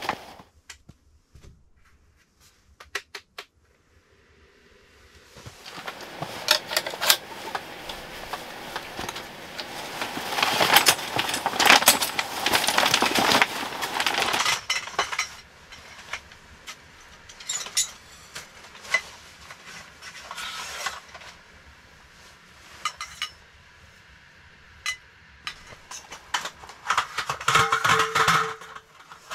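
Folding camp furniture being set up: fabric rustling and metal clicks as a folding camp chair is opened, then clinks and a rattle of aluminium slats near the end as a roll-up camp table's top is laid onto its frame.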